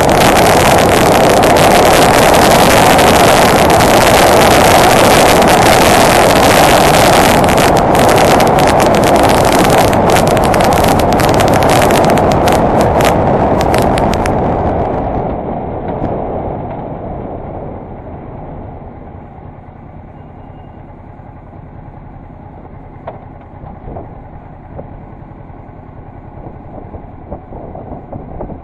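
Loud wind rush on the microphone of a Honda Deauville NT650V motorcycle riding at speed. About halfway through it dies away as the bike slows, leaving the V-twin engine running quietly at low speed.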